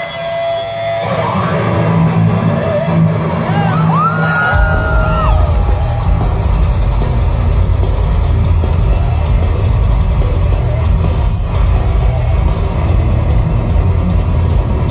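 Heavy metal band playing live, loud: a thinner passage with wavering, bending high guitar tones, then the full band with drum kit and distorted guitars comes in about four and a half seconds in and drives on steadily.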